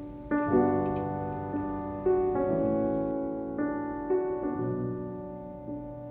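Gentle background piano music, soft chords struck one after another and left to ring.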